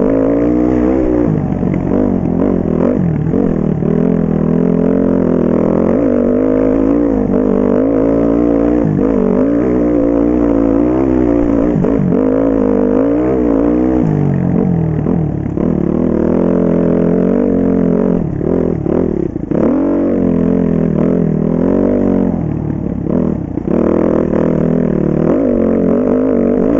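2009 Husqvarna TE 310's single-cylinder four-stroke engine being ridden off-road, revving up and down as the throttle is opened and closed every second or so. The revs drop briefly a couple of times about two-thirds of the way through.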